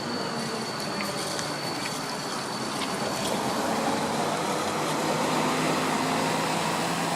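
Bombardier Cityrunner tram running through a tight turning loop. A thin, steady high wheel squeal fades away over the first three seconds, with a few short clicks from the wheels on the rails, over a steady vehicle noise.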